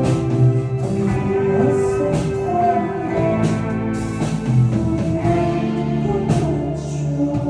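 A live rock band playing: guitar chords over a drum kit, with little singing at this point in the song.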